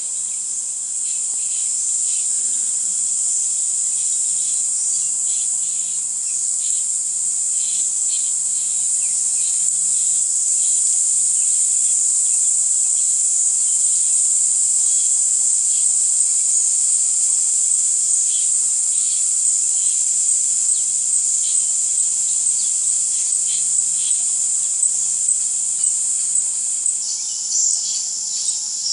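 Steady, high-pitched chorus of insects buzzing without pause, with short faint chirps scattered over it.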